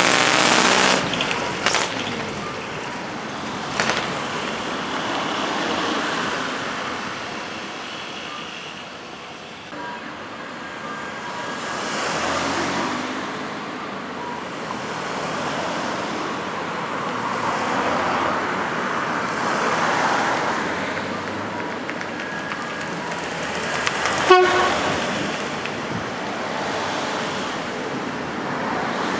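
Decorated trucks driving past one after another, their engine and exhaust noise swelling and fading as each goes by, with horn toots among them. A sharp, loud blast comes near the end.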